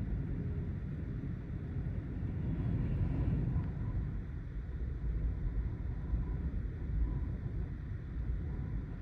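Gusty Santa Ana wind buffeting the microphone as a deep, rumbling noise that swells and eases, strongest about three seconds in.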